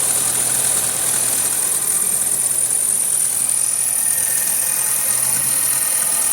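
A 2015 Nissan Versa making a steady, high-pitched whine with a hiss, over fainter steady tones and a low hum: the weird sound the car is being recorded for.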